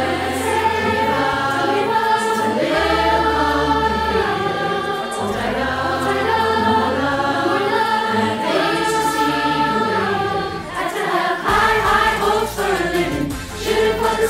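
Virtual choir of children and adults singing held notes over a backing track with a steady low bass line.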